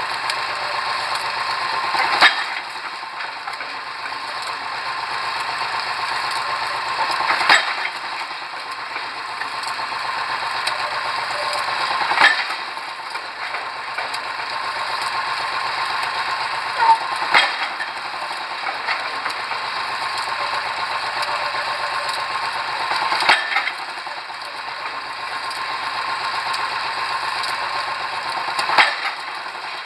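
Pile-driving hammer striking a pile at a slow, even pace of about one blow every five seconds, six blows in all, over the steady running noise of the rig's machinery.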